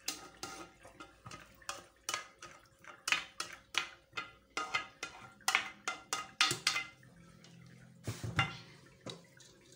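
A kitchen utensil scraping and knocking against a glazed clay dish and an aluminium couscoussier steamer basket as steamed vermicelli is pushed from one into the other: a run of short scrapes and knocks, several a second, then a dull thump near the end.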